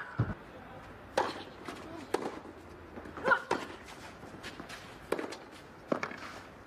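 A tennis ball struck back and forth by rackets during a rally on a clay court, sharp hits coming about once a second. Some hits come with a player's short grunt.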